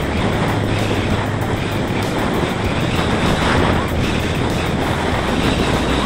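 Steady rush of wind over the microphone of a camera riding on a Parrot Disco fixed-wing drone, gliding with its motor off at about 60 km/h.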